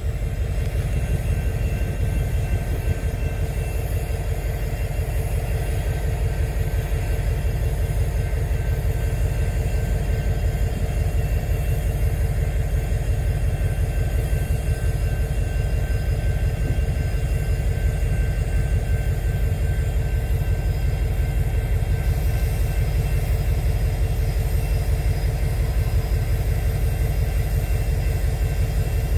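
BNSF GP60M-3 diesel locomotive running steadily, a low rumble with a faint steady hum over it.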